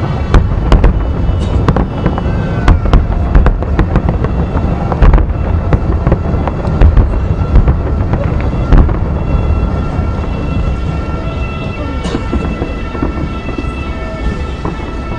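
Fireworks display going off: a rapid run of sharp bangs and crackles over deep booming, thickest for the first nine seconds or so and thinning out after that.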